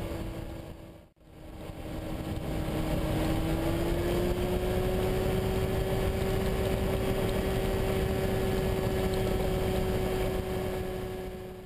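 Weight-shift microlight trike's engine and propeller droning steadily in flight, its pitch rising slightly about four seconds in. The sound fades nearly out and back in about a second in.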